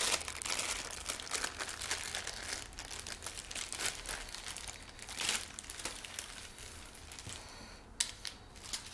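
Plastic packaging crinkling and rustling as a tripod is pulled out of its wrapping, thinning out toward the end, with a couple of sharp clicks near the end.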